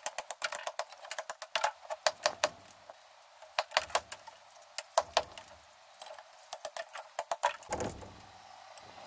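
Club hammer striking a steel chisel, chipping away pebbledash render and brick from a house wall. Runs of quick, sharp blows with short pauses between them.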